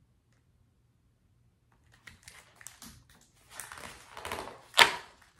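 Paper pages of a hardcover picture book rustling as a page is turned, starting about two seconds in, with one sharp flap of the page near the end.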